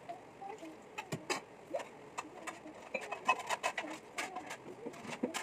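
Scattered light clicks and taps of children handling snacks and tableware at a glass-topped table, with faint short cooing calls.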